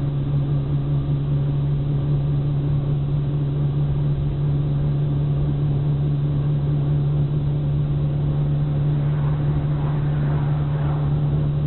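Car driving at steady speed, heard from inside the cabin: a constant low engine and road drone.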